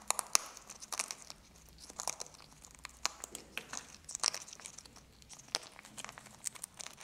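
An Amazon parrot crunching and biting a piece of pretzel with its beak: irregular sharp cracks and crunches, several a second, quieter for a moment in the middle.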